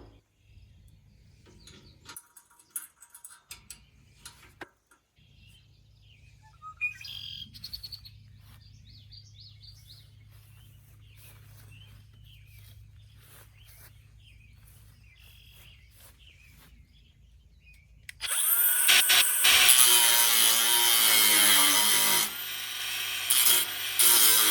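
Faint bird chirps and small handling clicks, then about 18 seconds in a power tool starts up abruptly and runs loudly and steadily, easing off briefly a few seconds later before picking back up.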